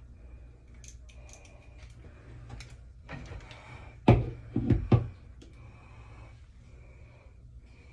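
Handling noise from a phone held close while filming: soft rustling and a few light clicks, then three heavy bumps close together about four to five seconds in.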